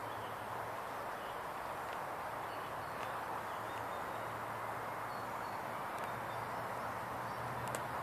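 Outdoor ambience: a steady background hiss with faint, short bird chirps now and then.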